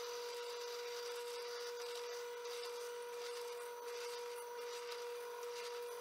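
Drill press running with a steady whine as a 7 mm drill bit bores into a stabilized sassafras pen blank, with the rasp of the bit cutting wood.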